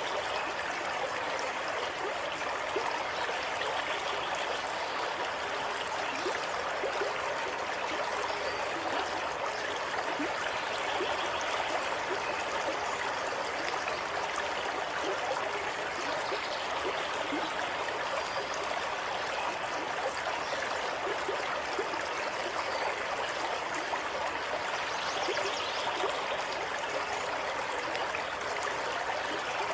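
Water flowing and rushing steadily, an even continuous sound with no pauses.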